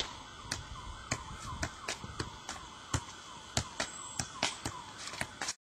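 Soccer ball being juggled, its sharp thuds off foot and knee coming about twice a second, over a faint repeating falling tone like a distant siren. The sound cuts off suddenly near the end.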